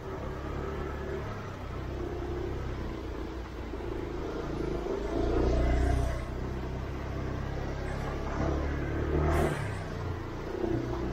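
Honda scooter's small single-cylinder engine running while being ridden along a lane, with road and wind rumble. It swells louder as the throttle opens, about five seconds in and again near nine seconds.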